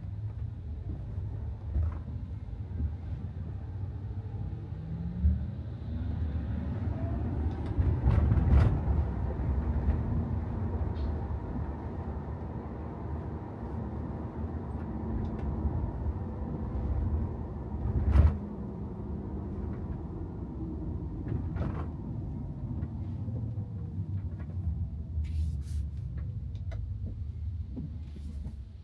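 Tesla Model Y driving, an electric car with a steady low road and tyre rumble. About six seconds in a faint rising whine comes in. A few thumps from bumps in the road are heard, the loudest about eighteen seconds in.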